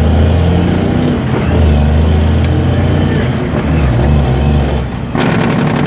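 A semi truck's diesel engine running, heard loud and low from inside the cab. About five seconds in the sound changes suddenly to a harsher, noisier one.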